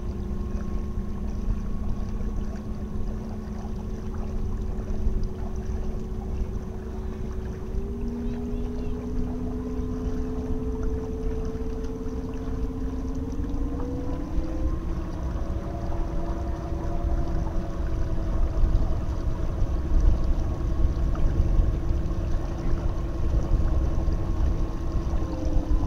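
Golden Motor 10 kW 48 V brushless DC electric motor driving a sailboat's propeller, a steady whine that steps up in pitch twice, about a third of the way in and just past halfway, as the throttle is raised to about 30 amps (around 2.5 kW). It sounds over a steady low rumble.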